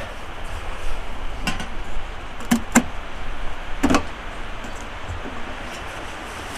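A few sharp metallic clinks and knocks as a metal charcoal chimney starter and the lid of a small portable charcoal grill are handled: two close together, then a last, louder one. A steady hiss of outdoor background runs under them.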